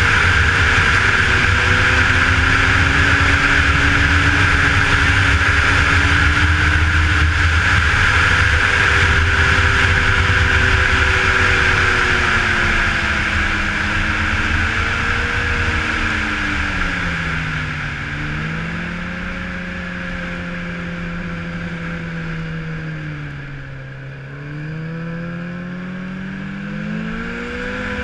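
Yamaha snowmobile running along a trail, its engine note under a steady high whine. The engine pitch and loudness sink as the sled slows about two-thirds of the way through, then rise again as it speeds up near the end.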